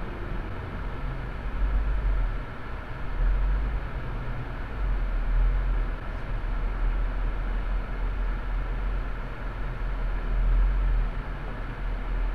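Road and engine noise of a moving car heard from inside the cabin through a dashcam microphone: a steady low rumble with tyre hiss, swelling and easing a little as it drives.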